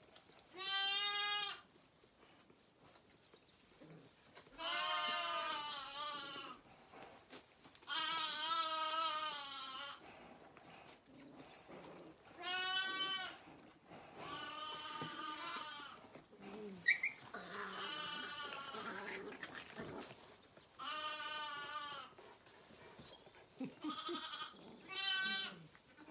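Zwartbles lambs bleating repeatedly, about eight calls over the stretch, each lasting a second or two with a wavering, quavering pitch and short pauses between.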